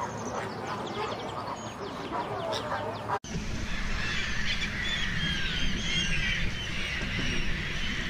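A flock of flamingos honking and chattering. About three seconds in it cuts off abruptly and gives way to a dense clamour of many gulls calling at once, over a low rumble.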